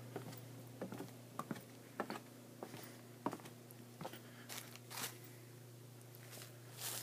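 Faint footsteps and small taps and scuffs, scattered irregularly, over a steady low hum.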